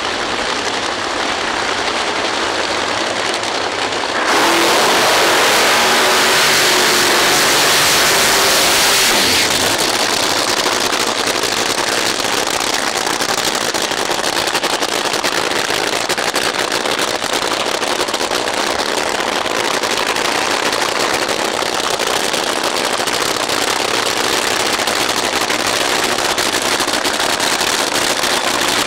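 Supercharged nitromethane drag racing engines, a Funny Car and a Top Fuel dragster. A steady engine noise jumps to a full-power launch roar about four seconds in and lasts some five seconds, then gives way to a slightly quieter, dense crackling engine noise.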